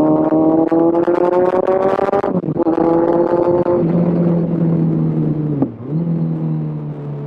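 Kawasaki Z1000 motorcycle's inline-four engine under way, its note rising for about two seconds, breaking off briefly at a gear change, rising again and then easing off. Near the end it dips once more and settles at a steady lower note.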